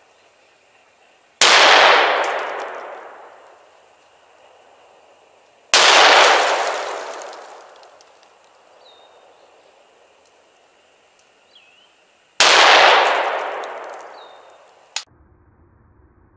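Three single gunshots, about four and then seven seconds apart, each a sharp crack that trails off in a long echo over two to three seconds. A short click sounds near the end.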